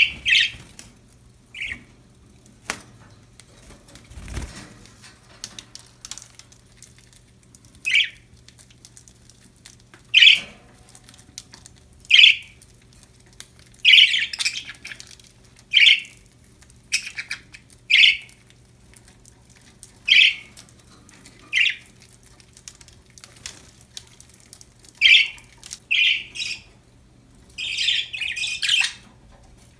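Budgerigars (budgies) giving short, loud chirps and squawks, roughly one every one to two seconds, with a quick flurry of calls near the end.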